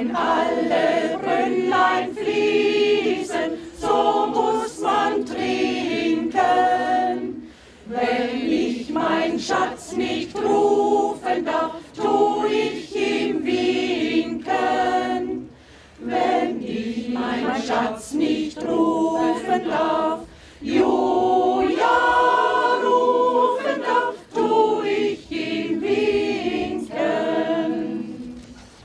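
Mixed choir of men's and women's voices singing together, phrase after phrase, with brief pauses between phrases.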